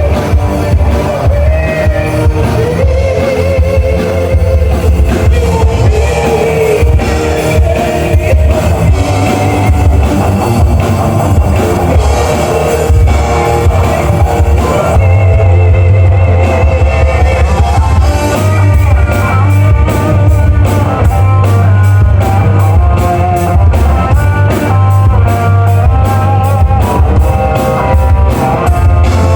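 Rock music with electric guitar, bass and drum kit, and some singing. About halfway through the cymbals briefly drop out, then a fast, steady beat comes back in.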